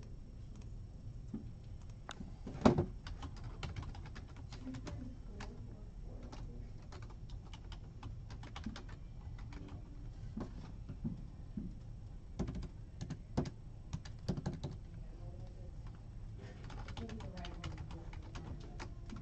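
Irregular small clicks and taps, with one louder knock about three seconds in and busier runs of clicking later, over a low steady hum.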